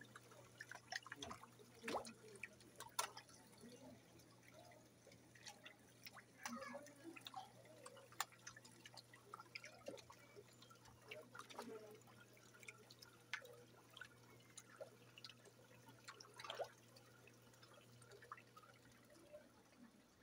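Faint, irregular drips and small splashes of water at the surface of an open aquarium tank, over a low steady hum.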